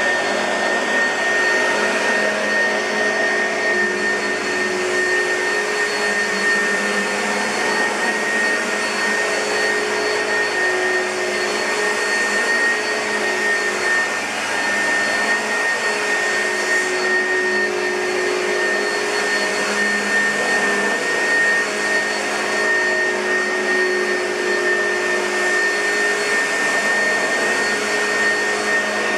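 Oreck XL2 bagged upright vacuum cleaner running steadily, its motor giving a constant high whine over the airflow rush.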